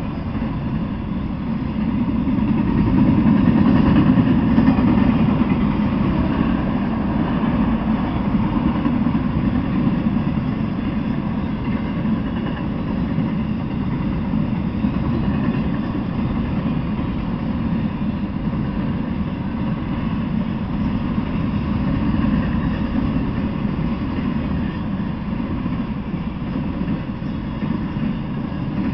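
Freight train of autorack cars rolling past at speed: a steady rumble of steel wheels on the rails, swelling a few seconds in.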